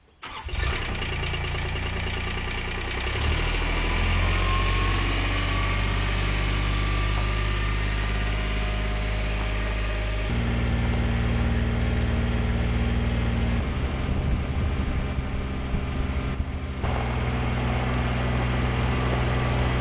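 A vehicle engine running steadily, its pitch shifting up or down in steps several times.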